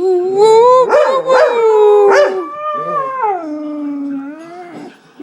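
A dog howling in long, drawn-out wails. The first wavers and rises, with sharp yelps breaking in. The second slides down about three seconds in to a lower held note that fades out near the end. The owner takes the howling for jealousy at another dog being held in her lap.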